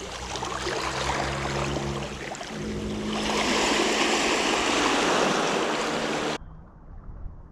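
Spinning reel being wound in, a steady whirring hum, under the rush of small waves washing on the beach. The wash swells louder about three seconds in and cuts off abruptly about six seconds in.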